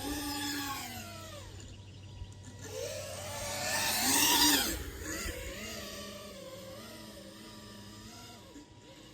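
FPV racing quadcopter's brushless motors whining, the pitch rising and falling with the throttle, loudest at a swell about four seconds in.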